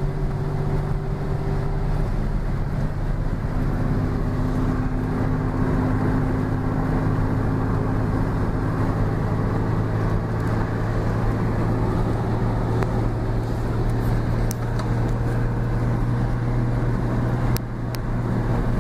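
Car engine drone and road noise heard from inside the cabin while driving, steady and even, with the engine's hum shifting pitch a couple of seconds in.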